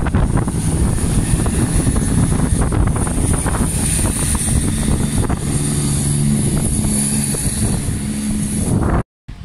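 Greater Anglia diesel multiple unit moving past under power, its diesel engines giving a steady low drone over rapid wheel clatter on the rails. The sound cuts off abruptly near the end.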